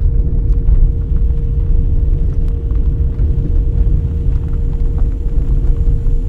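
Loud, steady low rumble with a faint constant hum over it.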